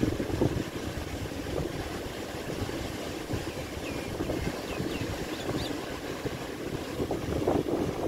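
Wind buffeting the microphone with a low rumble, gusting near the start and again near the end, over a faint wash of sea surf. A few faint, short bird chirps come around the middle.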